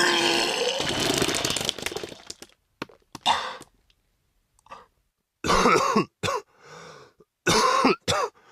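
A man vomiting: a long voiced heave trails off into noise over the first two seconds. It is followed by a run of about five short, harsh coughs.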